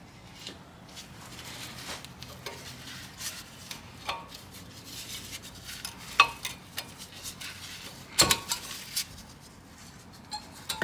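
Metal tools and brake parts being handled, clinking and clanking against each other in scattered knocks, with a sharp clank about six seconds in and a cluster of louder clanks about eight seconds in.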